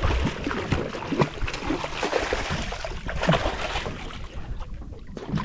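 Irregular knocks and clunks aboard a small fishing boat, over a steady wash of wind and water.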